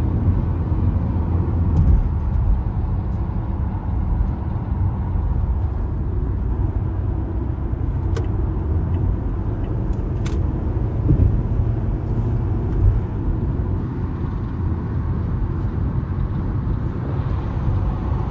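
Toyota Camry cruising at highway speed, heard from inside the cabin: a steady low rumble of engine and tyre noise, with a couple of faint clicks near the middle. The newly swapped six-speed automatic runs with no whine, clunk or slip noise.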